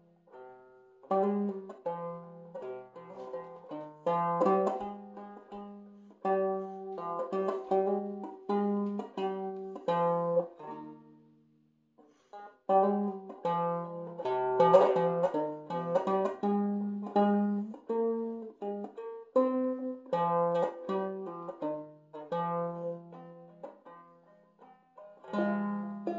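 Banjo in open G minor tuning (standard G tuning with the second string lowered to B flat) picking a slow minor melody note by note. The playing breaks off for a moment about halfway through, then starts again.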